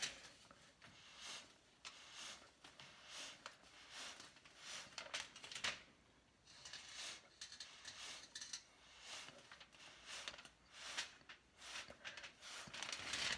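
Short puffs of breath blown through a plastic drinking straw onto wet acrylic paint, a soft hissing of air repeated about twice a second, some puffs stronger than others.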